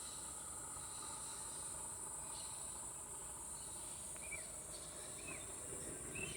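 A steady, high-pitched insect chorus, crickets or similar, droning without a break. In the second half, three or four short high chirps sound over it.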